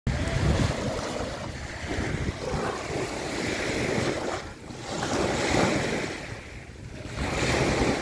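Small wind-driven waves breaking and washing on a lake shore in uneven surges that swell and ebb, with wind rumbling on the microphone.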